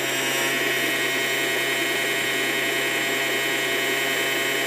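Parkside Performance 40V cordless chainsaw's brushless motor running steadily with no load on speed setting 1, its bare drive sprocket spinning with the bar and chain off. The motor gives an even, high whine.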